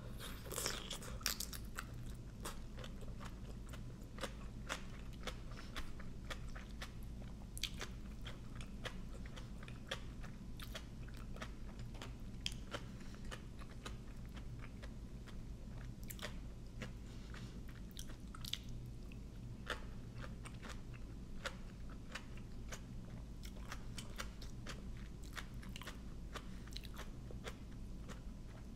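Close-up chewing and crunching of a mouthful of Thai papaya salad (som tam) with raw shrimp and crisp raw vegetables, many short irregular crunches and bites throughout.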